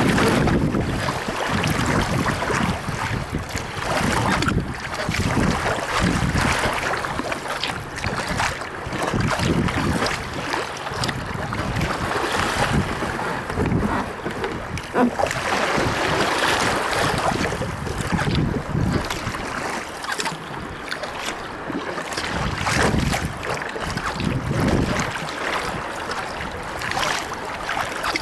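Wind buffeting a microphone on a sea kayak's foredeck, with water rushing and splashing along the hull as the kayak runs before small following waves; the noise surges up and down unevenly.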